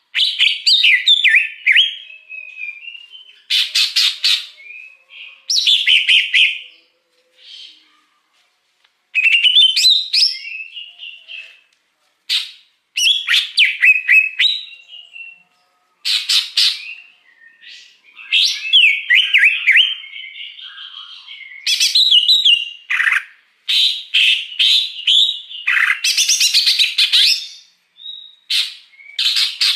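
Cucak hijau (greater green leafbird) singing in phrases of one to two seconds with short pauses between them. Each phrase is a varied mix of quick chirps, gliding whistles and harsh notes.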